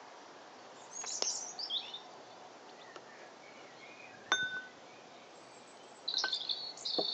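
Birds chirping intermittently, with a single ringing clink about four seconds in: a metal spoon striking a ceramic bowl while stirring.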